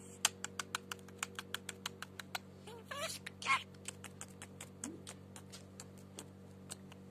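Budgerigar making rapid, sharp beak clicks, several a second, with a couple of short chirps about three seconds in.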